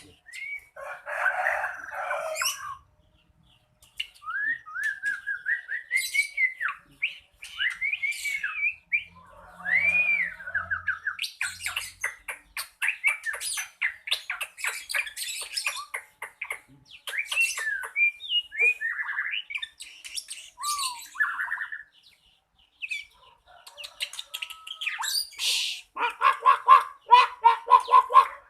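White-rumped shama (murai batu) singing: a varied run of clear rising and falling whistles, fast trills of ticking notes and harsh scratchy phrases, broken by short pauses.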